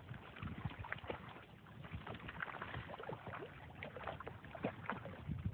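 Dogs paddling in pond water: faint, irregular splashing and lapping, with a low rumble underneath.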